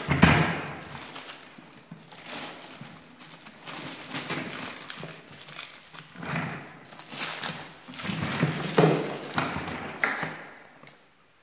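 Clear plastic sheeting crinkling and rustling, with occasional knocks of the plastic housing of a Bosch GAS 15 wet/dry vacuum as it is handled. The sounds come in irregular bursts, loudest just after the start, and fade near the end.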